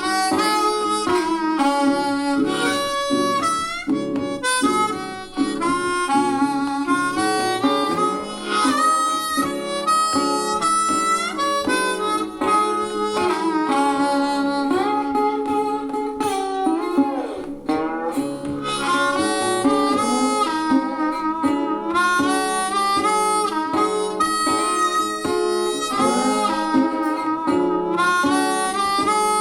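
Music: a harmonica playing a bending melody over guitar, with a steady low held tone underneath.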